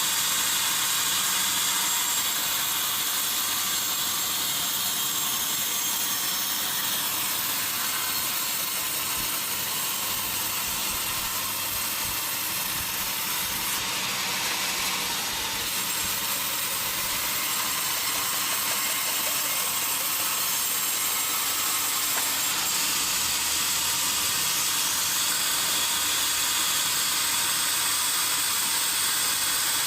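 Sawmill saw running on a teak log, a steady hiss that barely changes.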